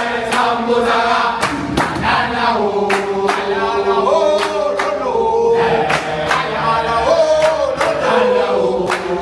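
A group of men singing together in chorus, with long held and sliding notes and sharp percussive hits through the song.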